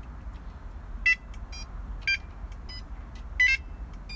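Prologic SMX bite alarm giving short electronic beeps at slightly different pitches, as its tone setting is stepped through: three louder beeps about a second apart, with fainter ones between them.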